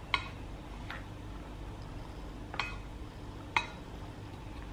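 A metal spoon clinking against a ceramic bowl four times while stirring banana pancake batter, each clink ringing briefly.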